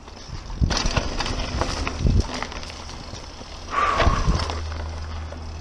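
Mountain bike rolling fast down a dry dirt trail: the bike rattles and knocks over bumps and ruts, with wind rumbling on the microphone. A brief high steady tone sounds about four seconds in.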